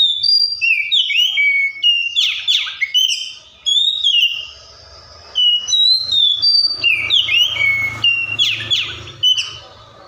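Oriental magpie-robin singing: loud whistled phrases of gliding notes and fast sweeping trills, in two runs with a short break about halfway.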